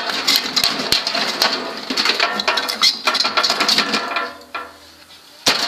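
Metal clattering and scraping as parts are wrenched out of a broken microwave oven's bent sheet-metal casing: dense rattling for about four seconds, then a short lull and a sharp knock near the end.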